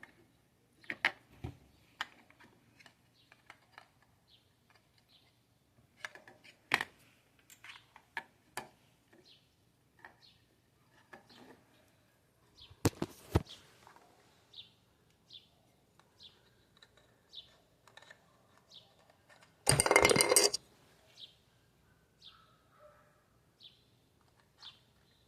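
Scattered clicks and knocks of small objects being handled, with a bird chirping short, high, downward notes about once a second through most of it. A loud noisy burst about a second long comes near the end.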